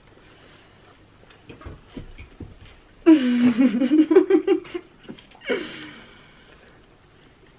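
Muffled, closed-mouth laughter from a young woman with her mouth full of food: a pulsing giggle about three seconds in, then a shorter burst a couple of seconds later. Before it, a few faint soft sounds of chewing.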